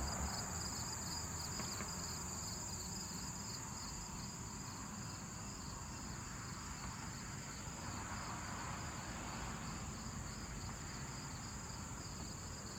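Insects calling: a steady high-pitched drone with a rapid pulsing chirp beneath it, over a low, even rumble of outdoor background noise.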